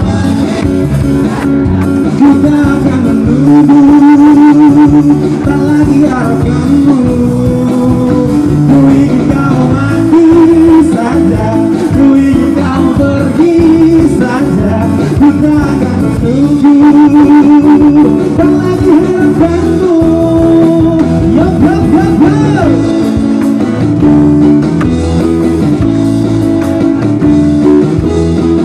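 Live band performing a song: a male voice singing long held notes with vibrato over electric guitars and drums.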